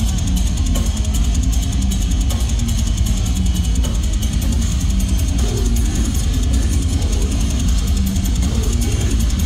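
A death metal band playing live in a concert hall: heavily distorted guitars and bass over fast, dense drumming and cymbals, with a heavy, booming low end.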